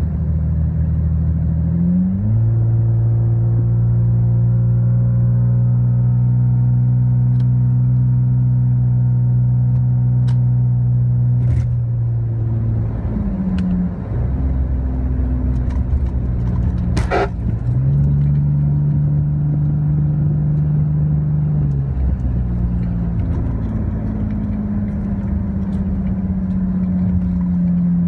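In-cabin sound of a straight-piped Lexus GS300's 2JZ-GE inline-six, muffler and resonator deleted, while driving: a loud, steady exhaust note whose pitch rises and falls several times as the engine speed changes. A sharp click comes about 17 seconds in.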